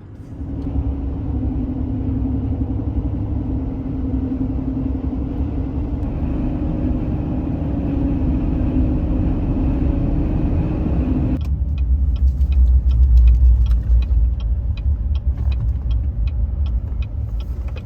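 Vehicle driving: steady engine and road rumble with a low hum. About two-thirds of the way through the sound changes, and a regular ticking of about two to three clicks a second comes in over a heavier rumble.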